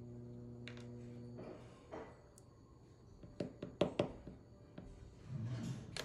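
A steady low hum stops about a second and a half in. Then come small sharp metal clicks and taps, most of them close together near the middle, as the brass plug and parts of a mortise lock cylinder are handled and set down on a rubber mat.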